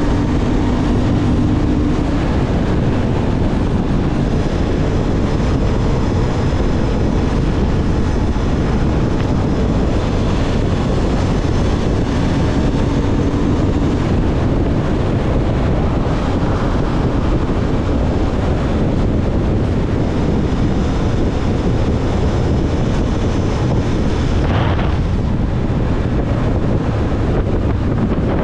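Motorcycle riding at speed, wind buffeting the helmet microphone over the steady note of the Honda CB750 Hornet's parallel-twin engine.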